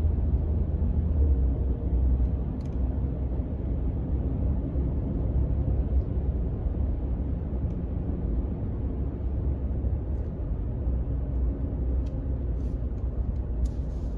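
Steady low rumble of road and engine noise from a moving vehicle, with a few faint clicks near the end.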